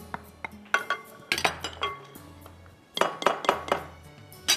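Background music with a bass line, over irregular clinks and knocks of a measuring cup against a glass mixing bowl as flour is tipped in, in two clusters about a second and about three seconds in.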